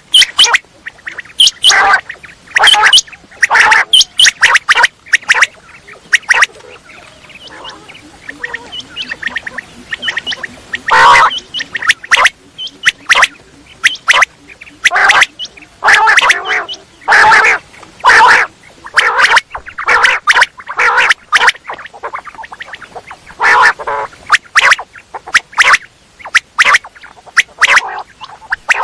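Quail calling in quick, repeated bursts of short, sharp notes, grouped in clusters with brief gaps. The calls thin out about a quarter of the way in, then come back thick and fast.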